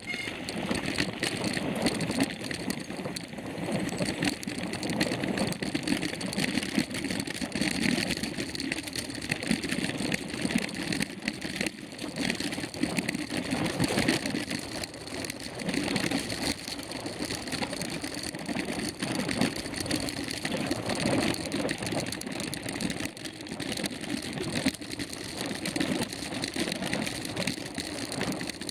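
Mountain bike rolling over a rough dirt trail: a continuous rumble and rattle of tyres and bike on the ground, dotted with small knocks throughout.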